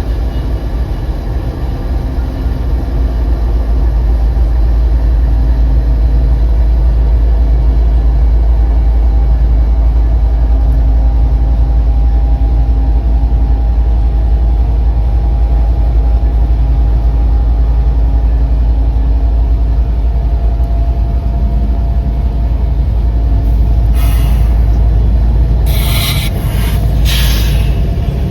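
Steady deep rumble of a moving CSX freight train and the vehicle keeping pace with it. Three short bursts of hiss come near the end.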